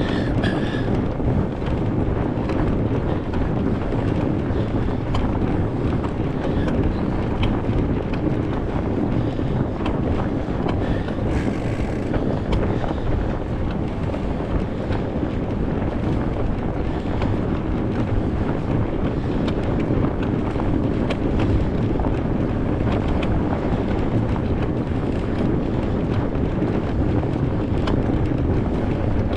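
Steady low wind rumble on a GoPro's microphone while a fatbike is ridden on a snowy trail, with scattered faint clicks.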